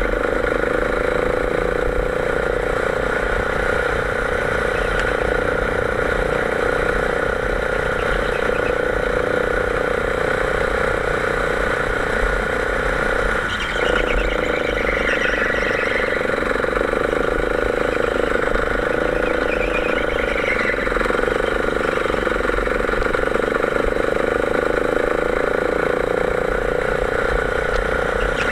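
Go-kart engine running steadily under load as the kart laps the track, a constant buzzing drone that changes pitch only slightly, with a brief dip about halfway through.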